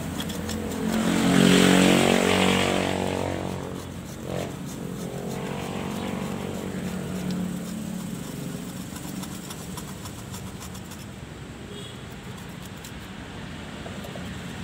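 A motor vehicle's engine passes by, loudest about two seconds in and then fading, with a fainter one going by around six seconds, over a steady background hum.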